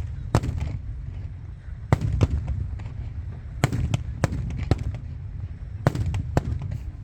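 Fireworks bursting overhead: about a dozen sharp bangs at uneven intervals, some in quick pairs, over a steady low rumble.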